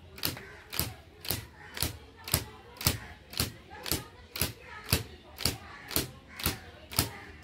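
The gut string of a traditional cotton-carding bow (dhunki) struck again and again with a wooden mallet (jista), fluffing raw cotton for quilt filling: sharp, evenly spaced strikes at about two a second.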